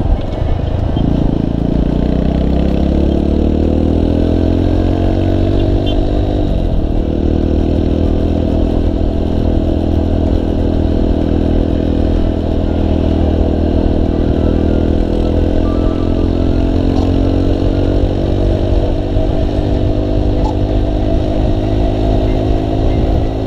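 Small motorcycle engine pulling away, its pitch rising over the first few seconds, with a short break about six seconds in that sounds like a gear change, then running at a steady cruise with small swells of throttle. A heavy low wind rumble sits under it throughout.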